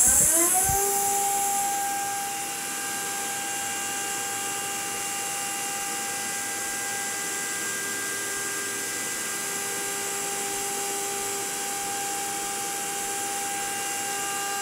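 High-speed CNC spindle spinning up with a rising whine, then running at a steady high pitch, and winding down near the end. A hiss at the start fades over the first two seconds.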